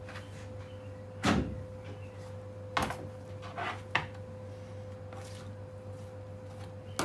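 Lamb cuts and a knife knocking on a plastic cutting board while meat is handled: one heavy thump a little over a second in, then a few lighter knocks, over a steady low hum.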